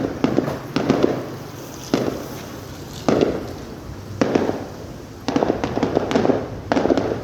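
Aerial fireworks display: shells bursting about once a second, six bangs in all, each followed by a second or so of dense crackling as it dies away.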